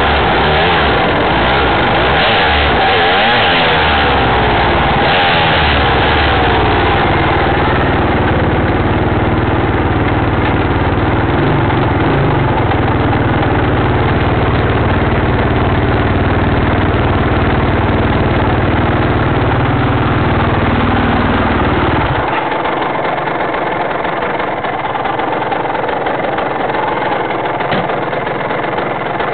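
Dirt bike engine running at low speed, heard close up through a camera mounted on the bike, the revs rising and falling over the first several seconds and then steadier. The deep rumble drops away about twenty-two seconds in.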